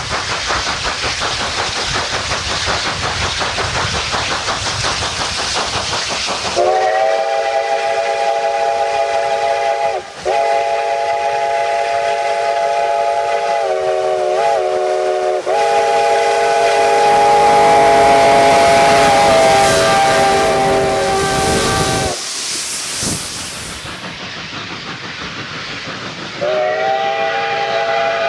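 Steam locomotive working hard, its exhaust chuffing and hissing, then its chime whistle sounds several notes at once in a long blast from about seven seconds in, broken briefly once and dipping in pitch for a moment midway. The whistle stops about 22 seconds in, the chuffing carries on more quietly, and another long whistle blast starts near the end.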